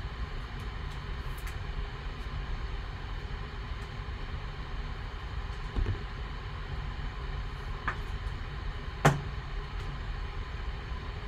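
Steady low background hum, broken by a few light plastic taps and clicks as a trading card is handled and put into a rigid clear plastic card holder. A soft thud comes about six seconds in, a light click near eight seconds, and a sharp click just after nine seconds, the loudest sound.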